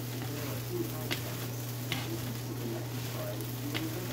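Fried rice being stir-fried in a wok, two wooden spatulas tossing and scraping it through the pan. There is a light sizzle, a few sharp clicks of the spatulas against the wok, and a steady low hum underneath.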